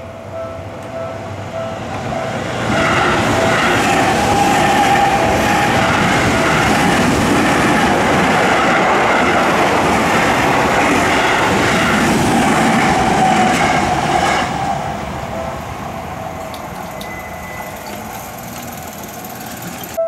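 A Japanese level crossing's warning bell rings, and then a Seibu Ikebukuro Line electric commuter train passes through the crossing. Its running noise rises sharply a couple of seconds in, holds steady for about twelve seconds, then drops off and fades as the train clears.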